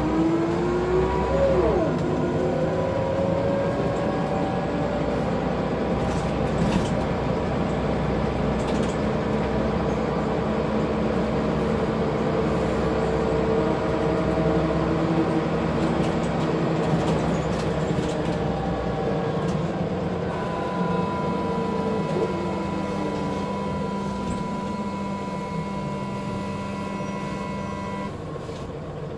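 Scania single-deck bus running along, heard from inside the rear of the cabin: the engine and transmission pull steadily, with pitch shifts as it changes speed. For the last several seconds a steady high whine runs while the bus slows.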